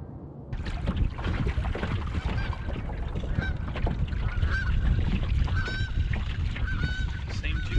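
Canada geese honking repeatedly, under heavy wind buffeting on the microphone that sets in about half a second in.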